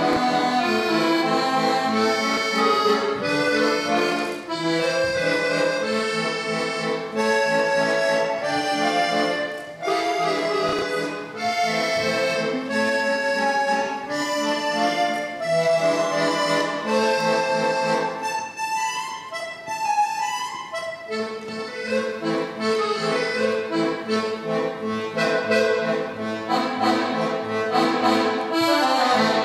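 Piano accordion played solo, a melody in the right hand over bass accompaniment. About two-thirds of the way through the sound thins to a few higher notes for a couple of seconds, then the full sound returns until the piece ends.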